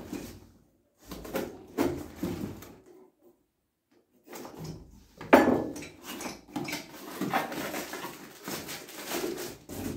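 A small cardboard box being handled and opened by hand: irregular rustling, scraping and tapping of cardboard, with a sharp knock about five seconds in.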